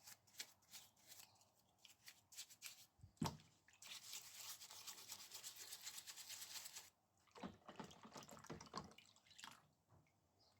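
Faint scrubbing of small bicycle parts with a brush. Scattered scratchy strokes come first, then about three seconds of fast continuous scrubbing near the middle, then more scattered strokes.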